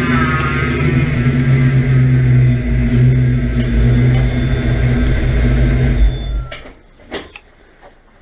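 Fox-body Mustang's 5.0 (302) V8 running steadily under way, then stopping abruptly about six and a half seconds in, followed by a few light knocks.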